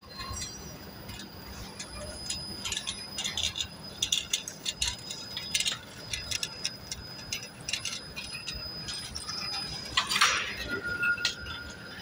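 High-speed automatic bobbin winding machine running: irregular light metallic clinks and rattles over a faint steady high whine and a low hum, with a short rush of noise about ten seconds in.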